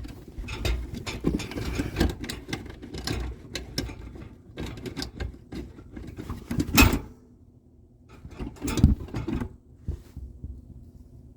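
Irregular mechanical clicking and clattering of hand tools and fasteners during work on a truck's underbody cover, with a sharp knock about seven seconds in and a short burst of clicks about two seconds later.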